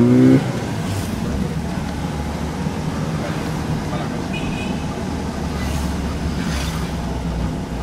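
Renault 18 GTX's stock 2.0-litre engine: a throttle blip climbing in pitch cuts off just after the start, and the engine then settles into a steady idle.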